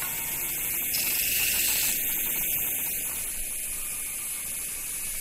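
Band saw running steadily and cutting a wooden tenon, a continuous hiss that swells slightly a second or two in.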